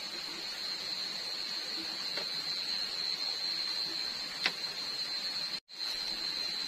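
Steady high-pitched drone of night insects, with one light click about four and a half seconds in and a brief moment of dead silence near the end.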